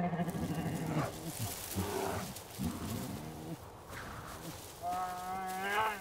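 Wolves vocalizing: a low held howl at the start, then a run of shorter sliding cries, and a higher, wavering howl about five seconds in.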